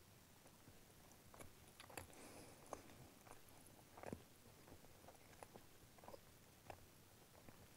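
Faint, irregular crunching of matzah being bitten and chewed.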